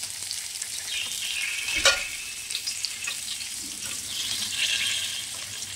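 Whole spices sizzling in hot oil in a steel pot, the sizzle swelling about a second in and again near the end. There is a single sharp knock about two seconds in.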